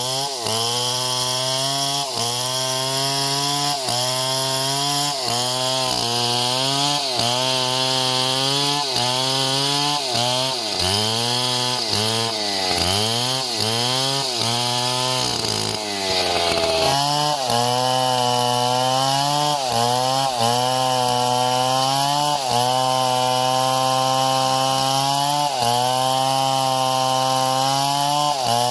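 Engine-driven saw cutting through wood, the engine's pitch sagging and recovering about once a second as it takes the load. It bogs down deeply for a few seconds past the middle, then runs steadier and higher.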